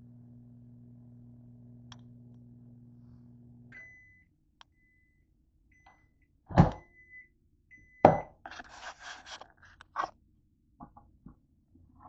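Microwave oven humming as it runs out its last few seconds, stopping about four seconds in. Its end-of-cycle beeps follow, then a loud clunk as the door is opened, and the plate knocks and scrapes on the glass turntable as it is taken out.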